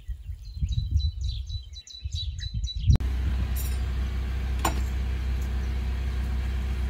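Small birds chirping repeatedly over gusty wind rumble on the microphone. About three seconds in, it cuts to a van cab with the engine idling steadily, and a single click comes a couple of seconds later.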